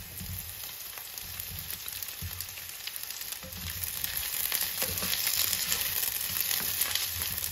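Sliced boiled potatoes and onions sizzling as they fry in hot clarified butter in a frying pan, with a spatula stirring and scraping among them. The sizzle grows louder about halfway through.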